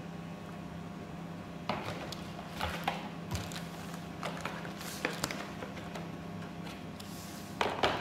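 Packaging being handled on a table: irregular rustles and light knocks as a foam sheet and a paper manual are pulled from a cardboard box, over a steady low hum.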